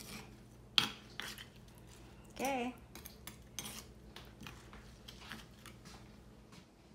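A spoon stirring a wet marinade in a stone molcajete, with repeated short clicks and scrapes of the spoon against the stone, the sharpest about a second in.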